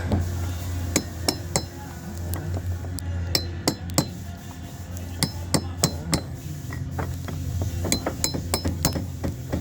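A mallet striking a caulking iron in small groups of about three quick taps, with pauses between groups; each blow is a sharp knock with a short metallic ring, driving caulking into a wooden hull's seams. A steady low hum runs underneath.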